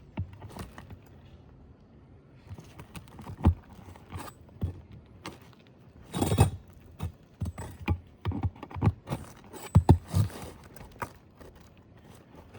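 Irregular knocks, taps and scrapes of hand work on an asphalt shingle roof, with a louder scrape about six seconds in and a cluster of knocks near the end.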